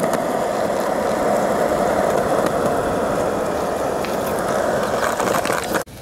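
Skateboard wheels rolling over rough concrete, a loud steady rumble, with a few sharp clicks along the way. It cuts off suddenly near the end.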